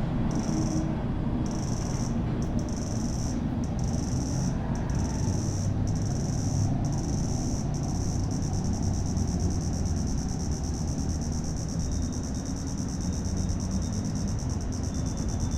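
Steady rumble of city traffic, with an insect chirping in fast, high pulses over it, stop-start at first and continuous from about halfway.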